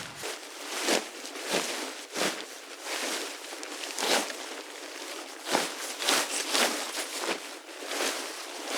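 Footsteps on dry ground, crisp crunching steps at an irregular walking pace.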